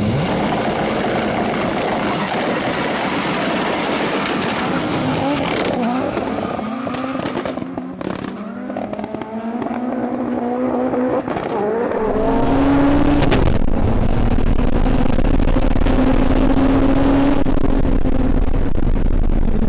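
Two drag cars, the turbocharged VW Golf II and a Honda Civic, launching and accelerating hard down the strip, engine pitch rising again and again through the gears. About twelve seconds in it becomes a louder, steadier engine drone at full throttle heard from inside the Civic's cabin.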